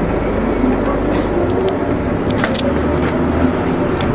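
City bus heard from inside the cabin while under way: a steady engine drone with road noise, and a few light rattles and clicks in the middle.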